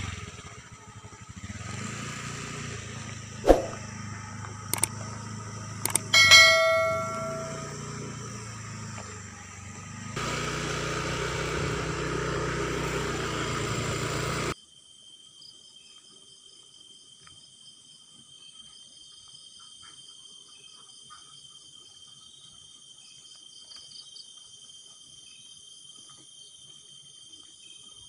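A few sharp knocks, then a single metallic ding about six seconds in that rings on briefly. A few seconds of louder steady noise follow and cut off suddenly, leaving crickets chirring steadily for the rest of the time.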